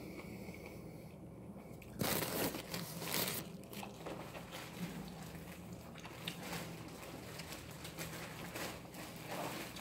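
Close-up chewing of a mouthful of mixed vegetables (green beans, corn, carrots): soft wet smacks and small crunches. A louder rustling crunch comes about two seconds in.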